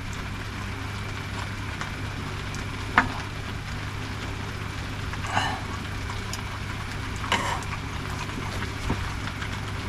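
Steady rain hiss with a constant low hum underneath, broken by three brief knocks or clinks.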